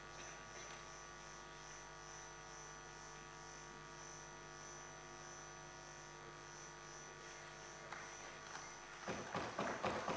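Steady electrical mains hum, a low drone with many fixed tones, from the hall's audio feed. About nine seconds in, scattered clapping starts.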